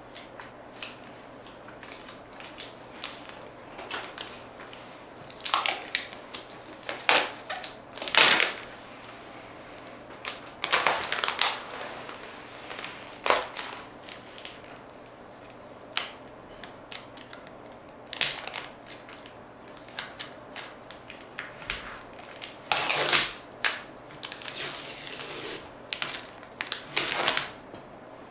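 Irregular handling noises: knocks, clicks and short rustles of objects being moved about, uneven in loudness, with the loudest knocks about eight seconds in and again near the end.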